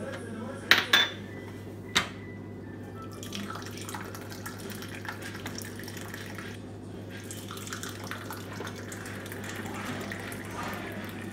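A few sharp clinks of glass on a metal tea tray in the first two seconds. Then, from about three seconds in, a steady splashing pour of tea streaming from a Moroccan teapot held high into a small tea glass.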